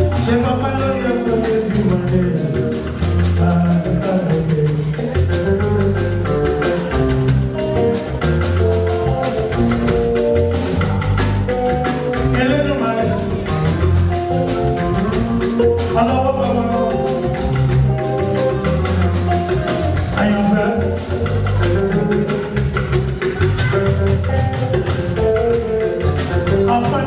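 Music with a steady beat and repeating bass notes.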